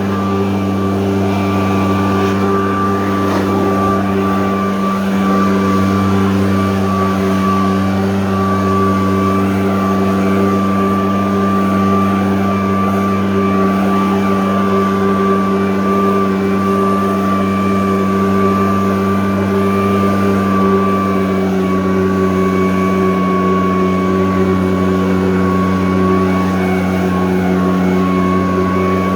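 85.5cc engine blower running steadily at an unchanging pitch, with a steady high whine above the engine note.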